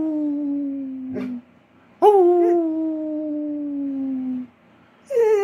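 Basset hound howling in long calls that each slide slowly down in pitch: one fading out about a second and a half in, another from about two seconds in, and a third starting near the end.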